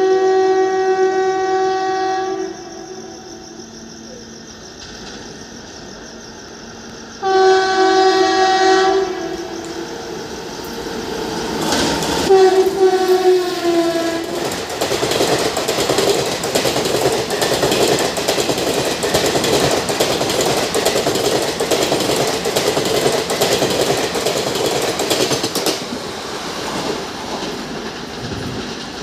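WAP-4 electric locomotive's horn sounding three long blasts as the express approaches; the third, about twelve seconds in, falls in pitch as the locomotive rushes past. The passing coaches' wheels then clatter steadily over the rail joints, growing quieter near the end.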